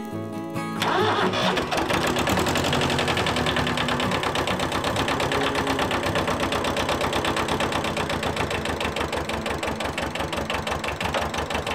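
An engine starts about a second in and keeps running steadily with an even, rapid beat.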